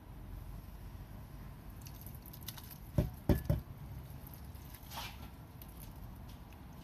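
Instant noodles and broth poured from a stainless steel pot into a ceramic bowl: three loud wet plops in quick succession about three seconds in as the noodles slide out, then a lighter splash about two seconds later.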